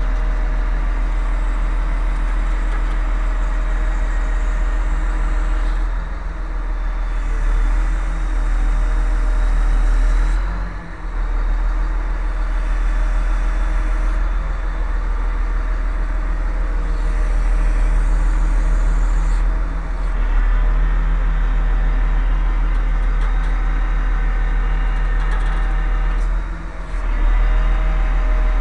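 A large diesel engine idling steadily with a low drone, dipping briefly twice.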